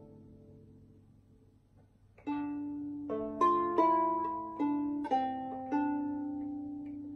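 20-string Gothic harp by George Stevens, plucked: the last notes of a phrase die away into a short pause. About two seconds in, a new phrase opens with a strong chord and goes on in plucked notes and chords that ring on, the tune of a medieval estampie.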